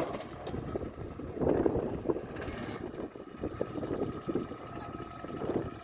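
Small engine of a student-built off-road buggy running and surging unevenly, with wind on the microphone.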